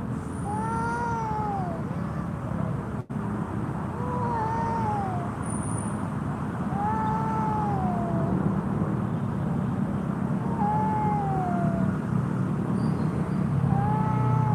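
Cats caterwauling in a standoff: long, drawn-out yowls that rise and then fall in pitch, one every two to three seconds.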